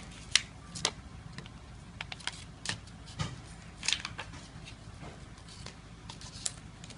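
Clear-glue slime giving irregular sharp, sticky clicks and snaps as it is pulled and scraped off a plastic plate with fingers and a plastic spoon.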